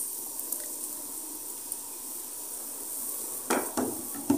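A faint steady hiss while cooking oil is poured into a pressure cooker pot of water, then a few quick clinks of kitchenware, about three and a half seconds in.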